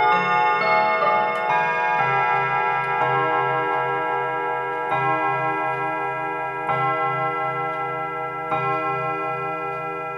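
Mechanical three-train mantel clock chiming on its rods: the last notes of its chime melody in the first couple of seconds, then the hour struck as single strokes about every 1.8 seconds, each one ringing on into the next, with the clock ticking underneath.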